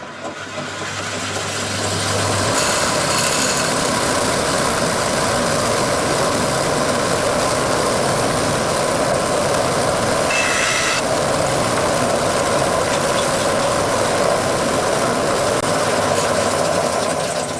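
Bandsaw switched on for a test run on its newly made wheel tyre: the motor hums as it spins up over about two seconds, then the saw runs with a steady loud whirr and dies away near the end.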